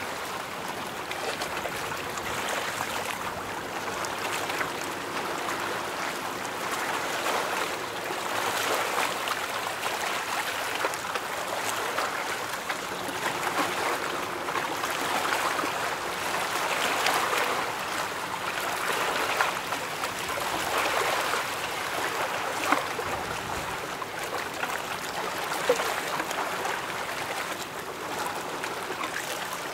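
Water washing and lapping: a steady rushing that swells and eases every few seconds, with a few sharp clicks in the second half.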